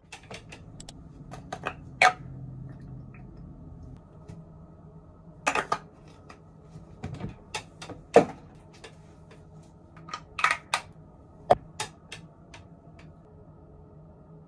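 Small plastic containers and packaging being handled: a scattered run of sharp clicks and taps, the loudest about two, eight and eleven and a half seconds in.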